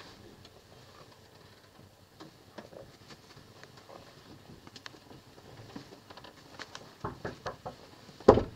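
Soft footsteps along a hard corridor floor, then a few sharp clicks and a single loud clunk near the end as a door's handle is reached.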